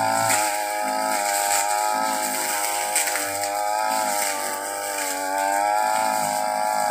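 Stihl backpack brush cutter engine running at high revs while cutting ferns and grass. Its pitch sags slightly and recovers as the blade takes load.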